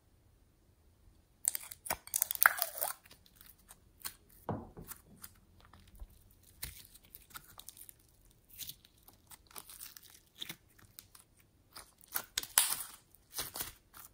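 Yellow glitter slime being stretched and squeezed between fingers, giving irregular runs of sticky clicks and crackles. They start about a second and a half in and come thickest then and again near the end.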